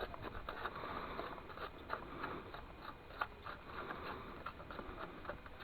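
Gritty crunching and scraping of a dry sand, cement and plaster of Paris mix being worked by hand, with many small irregular clicks.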